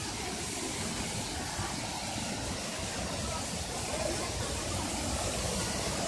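Steady rushing of a waterfall pouring into its pool.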